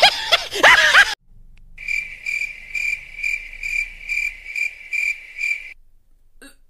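A burst of laughter cuts off abruptly about a second in. Then comes a stock cricket-chirping sound effect: a steady chirp repeated about two and a half times a second for around four seconds, the comedy cue for an awkward silence.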